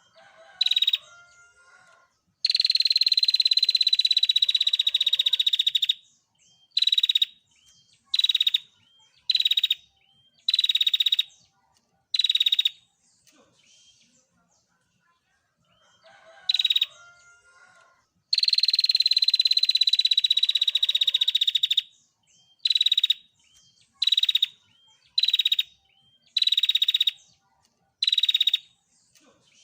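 Female prenjak (prinia) singing in high, rapid trills. A short call comes first, then one long trill of about three and a half seconds, then five short trilled bursts about a second apart. The same sequence comes twice.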